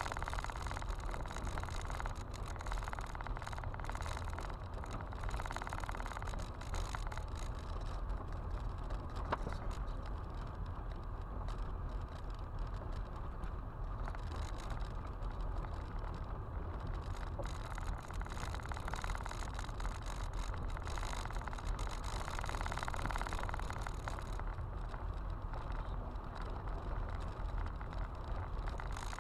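Car driving on an unpaved gravel road, heard from inside the cabin: a steady rumble of tyres on gravel with road noise and occasional small ticks.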